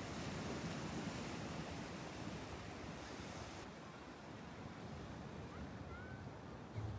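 Steady wash of sea surf, with some wind on the microphone.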